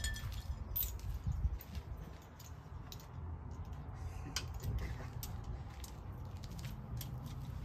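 Tire-changing tools and parts being handled: scattered light clicks and clinks over a steady low rumble.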